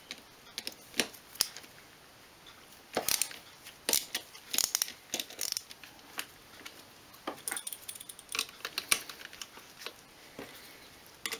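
Irregular light clicks and knocks of hard plastic and small metal parts as a Karcher K2 pressure washer's pump housing is handled and taken apart by hand.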